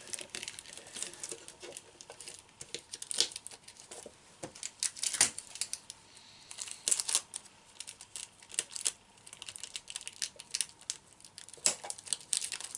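Plastic-film membrane crinkling as it is stretched over a small can, with sticky tape being pulled and pressed on around the rim: irregular crackles and clicks.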